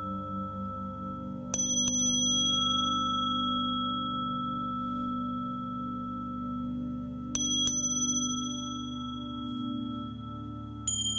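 Tibetan singing bowls ringing with a low, wavering hum. Over it a small high-pitched bell is struck twice in quick succession about a second and a half in, twice again about seven seconds in, and a few more times near the end, each strike ringing on.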